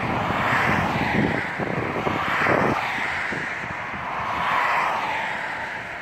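Wind buffeting the microphone over a steady rushing noise that swells and fades every second or two.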